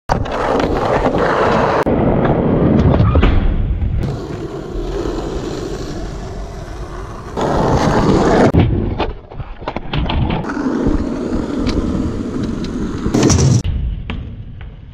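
Skateboard wheels rolling over concrete and asphalt with a steady rumble, broken by short sharp clacks of the board hitting the ground. About 13 seconds in there is a louder, sharper hit as the board meets a small quarter-pipe ramp.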